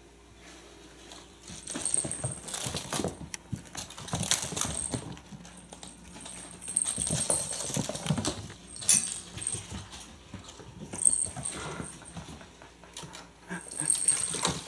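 Kittens playing rough on a wooden floor: scampering paws, scrabbling, and irregular knocks and clatter of small toys, with short high tinkles now and then.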